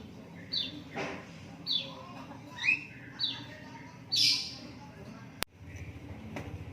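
Lovebirds chirping: short, high calls that fall in pitch, repeated about once a second, with a louder, harsher call about four seconds in. A sharp click comes about five and a half seconds in.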